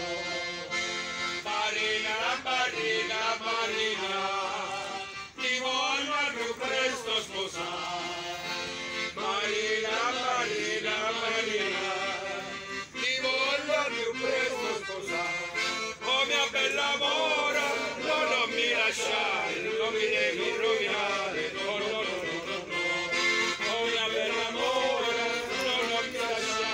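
Accordion playing a traditional folk tune, with a steady run of melody throughout.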